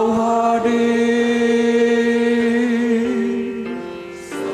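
Mixed church choir singing in Indonesian, holding one long chord on the word "kau" that shifts about three seconds in and fades, then singing "hadir" near the end.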